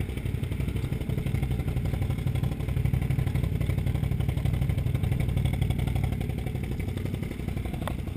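Can-Am Outlander XMR 1000R ATV's V-twin engine idling steadily, a little louder in the middle, with one short click near the end.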